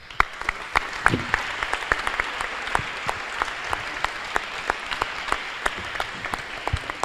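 Audience applauding: dense clapping that starts suddenly and keeps up at a steady level, with single sharp claps standing out.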